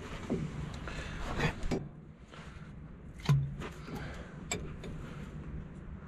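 Wrench and loose metal parts clinking and scraping while a hydraulic pump mount on a bulldozer is unbolted, with a louder metallic clunk about three seconds in.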